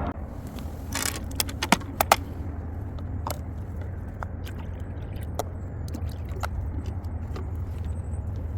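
Steady low rumble with scattered sharp clicks and taps, a tight cluster of them about one to two seconds in.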